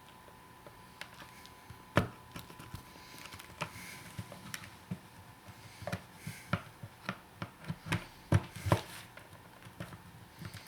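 Serrated knife blade prying and scraping at the hard plastic shell of a car sun visor: irregular clicks and knocks, with a sharp snap about two seconds in and a busier run of clicks in the second half.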